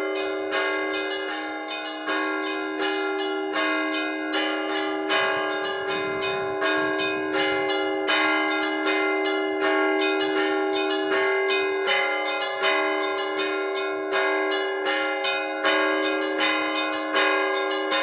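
Orthodox church bells rung by hand by a bell-ringer: several bells of different pitches struck in a quick, steady rhythm, their tones ringing on and overlapping. This is the peal rung to call the faithful to the evening service.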